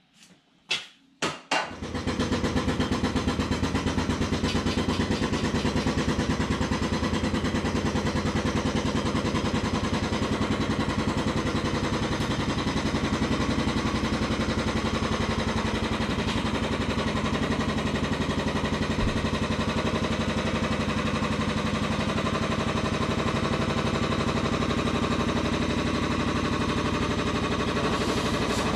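A few knocks, then about two seconds in the motor of a motorcycle scissor lift starts and runs steadily as it raises the motorcycle on its platform.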